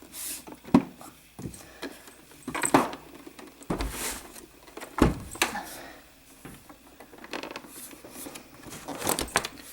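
Plastic housing of a Designer 1 sewing machine being pressed back together by hand, with a handful of sharp clicks and knocks as its joints snap into place.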